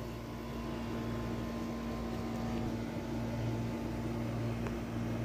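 Steady mechanical hum from a running appliance, with a constant low tone and an even low whir underneath.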